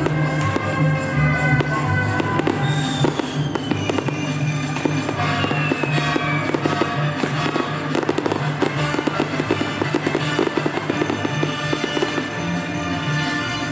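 Fireworks bursting in a rapid crackling volley, thickest through the middle, over music with a steady bass line.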